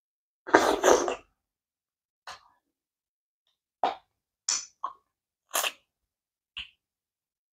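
Close-up eating sounds of a person eating swallow and stew by hand: a loud wet slurp lasting under a second as a ball of food goes into the mouth, then six short separate mouth smacks and finger-sucking clicks.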